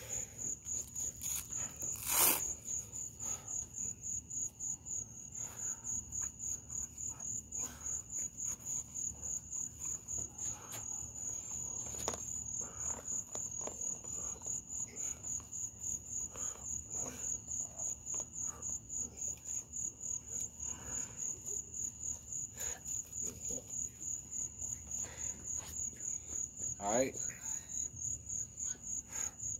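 Crickets chirping in a steady, high, pulsing chorus. About two seconds in there is a sharp knock, the loudest sound in the stretch, and a smaller knock comes around twelve seconds in.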